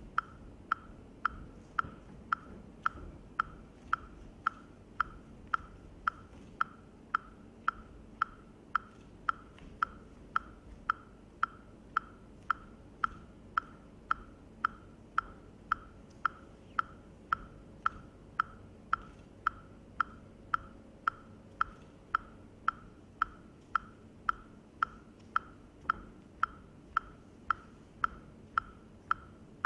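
A steady metronome-style click, one short, high, slightly ringing tick repeating at an even pace of a little under two a second, with faint room noise beneath.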